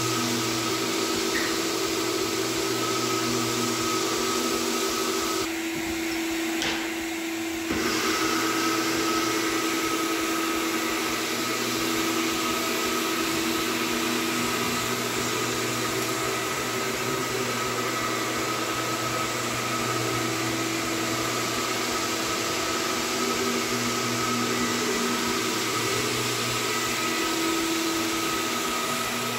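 Large canister wet/dry vacuum running steadily, its motor humming while sanding dust is sucked up from the hardwood floor through a long hose. About six seconds in it briefly drops quieter for a couple of seconds.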